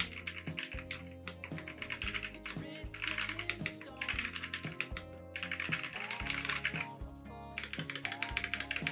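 Typing on a Hexgears Soda68 gasket-mounted mechanical keyboard with Kailh Box "Soda" switches and PBT double-shot keycaps: quick runs of key clacks broken by short pauses, over background music.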